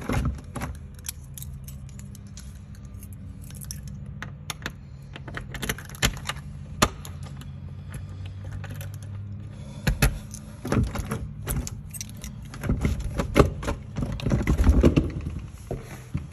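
Keys jangling and a door lock being worked: a run of metallic clicks and clatters from the key, deadbolt and knob as a front door is unlocked and opened. The busiest, loudest rattling comes in the last few seconds, over a low steady hum.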